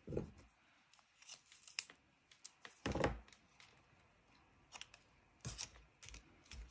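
Quiet, scattered paper-crafting handling sounds: a strip of glue dots peeled from its roll and vellum and card rustling as they are pressed together, with a soft thud about three seconds in.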